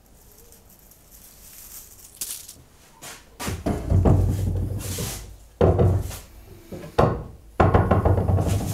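Heavy oak boards being slid and set down on a wooden workbench, in several bouts of rubbing, scraping wood on wood with knocks, starting about three and a half seconds in after a quiet start.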